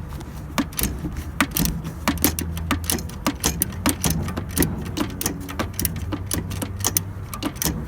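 Ratchet wrench clicking in quick, uneven strokes as the bolt holding a slack car drive belt is tightened to take up its tension.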